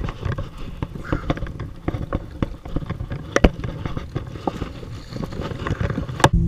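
Scattered knocks and rattles of fishing gear against a plastic kayak while a hooked bass is fought and netted, with water splashing at the boatside. A sharp knock comes near the end.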